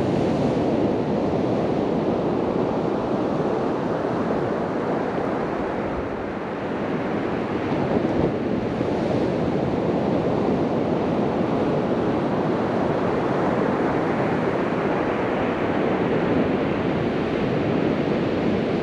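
Sea surf washing steadily onto a sandy beach, easing briefly and then building again, with wind buffeting the microphone.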